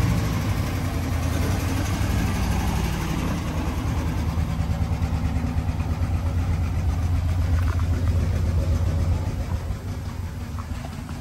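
1955 Mercury M100 pickup's engine running at low speed as the truck pulls slowly into a garage, a steady low drone that drops in level near the end.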